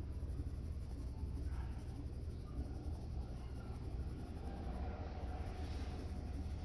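Faber-Castell Ecolápis neon coloured pencil rubbing and scratching on paper as a circle is shaded in with continuous short strokes, over a steady low hum.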